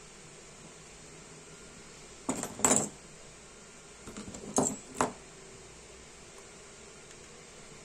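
Small metal clicks and taps from a pin punch working parts into the gas valve of a Dupont Minijet lighter. They come in two short clusters, one about two seconds in and another between four and five seconds, over a steady background hiss.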